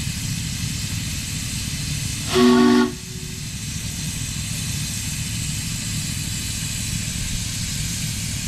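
A 7½-inch-gauge miniature train running along the track with a steady low rail noise and hiss. About two seconds in comes a single short whistle blast of about half a second, a chord of several pitches, the loudest sound here.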